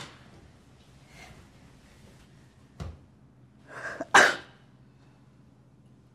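A woman settling back into bed, with a click at the start and a soft thump a little before three seconds. About four seconds in she gives a short breathy intake, then a loud, sharp breathy burst like a sneeze or an exasperated huff.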